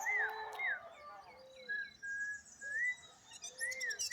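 Birds calling: short arched whistled notes repeated about every second, with lower rounded notes between them and a few faint high chirps.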